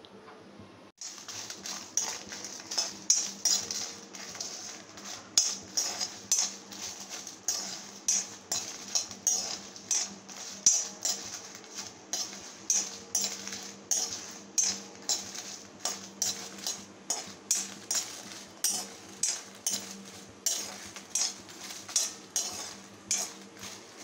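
Steel ladle scraping and clinking against an iron kadai in a steady rhythm, about three strokes every two seconds, starting about a second in, as dried red chillies are stirred and roasted in a little oil until they turn red.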